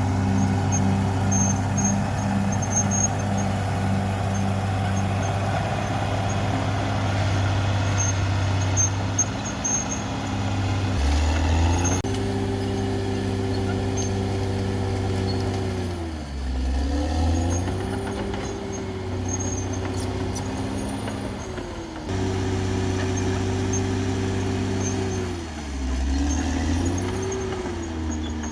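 Caterpillar D6R XL bulldozer's diesel engine running hard, steady at first, then dipping in pitch and recovering three times as the load changes.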